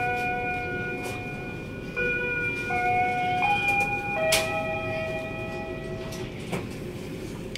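A train standing at a station, with a steady rumble, under a slow melody of long held notes that step in pitch every second or so. A few sharp knocks are heard.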